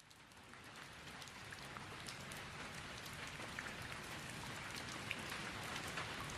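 Steady rain falling, with many individual drops ticking through the even hiss. It fades in from silence over the first second or so.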